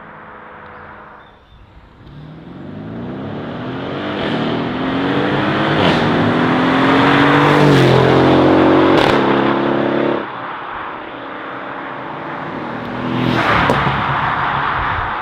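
Sports car engine accelerating hard past, its pitch climbing steadily for several seconds with a few sharp cracks along the way, then cutting off abruptly about ten seconds in. Near the end comes a second loud rush with a couple of sharp cracks.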